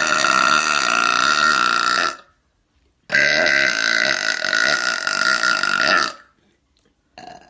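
A woman burping: two long, drawn-out burps of about two and three seconds, with a short pause between them, then a brief, quieter sound near the end.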